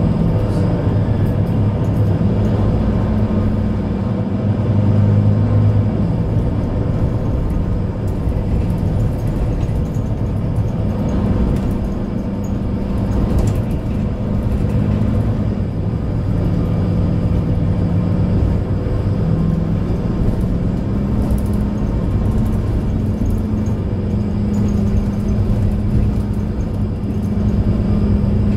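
Mercedes-Benz Citaro C2 Ü Hybrid bus's diesel engine running, heard inside the passenger cabin as a steady low hum whose pitch steps up and down several times.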